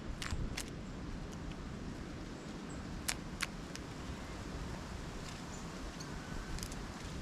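Steady low outdoor rumble with a few sharp taps, mostly in quick pairs: two near the start, two about three seconds in, and one more near the end.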